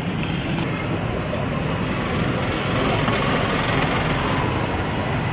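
Steady, even rushing background noise of a street-side food stall; no single sound stands out.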